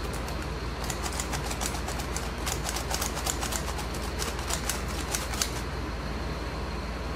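Hand-held stainless steel flour sifter being worked over a bowl, its mechanism rattling in a run of quick metallic clicks that starts about a second in and stops shortly before the end, as a cocoa, flour and cornstarch mix is sifted.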